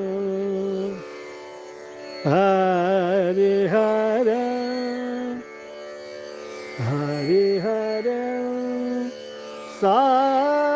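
Male voice singing a wordless Hindustani classical aalap: gliding, ornamented phrases that settle onto long held notes, with short pauses between them.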